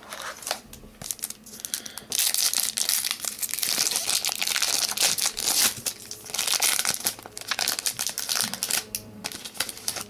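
Foil trading-card pack wrapper crinkling as it is handled, opened and the cards pulled out. A few light clicks come first, then dense crinkling from about two seconds in that thins out near the end.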